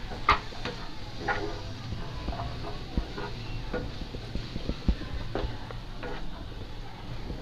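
Wooden spatula stirring diced vegetables in a nonstick frying pan: irregular soft scrapes and knocks against the pan, about one every second.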